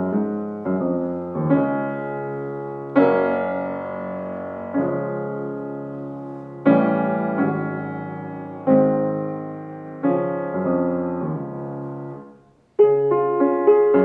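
Fazioli F212 grand piano played: chords struck every second or two and left to ring and fade. Near the end the sound stops briefly, then louder chords start again.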